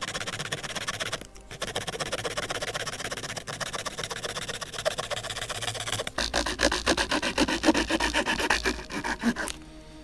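Victorinox Farmer pocket-knife saw blade cutting through a resinous pine branch in quick back-and-forth strokes, sped up to about double speed. The rasping grows louder in the last few seconds and stops suddenly shortly before the end as the piece comes free.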